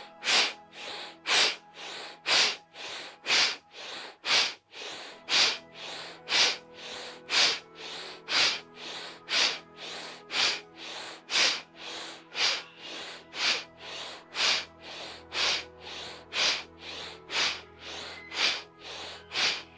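Bhastrika (bellows) breathing: rapid, forceful breaths through the nose, a loud exhale about once a second with a softer inhale between, over soft sustained background music.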